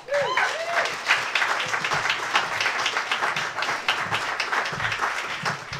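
Audience applauding, with a short cheer in the first second; the clapping thins out near the end.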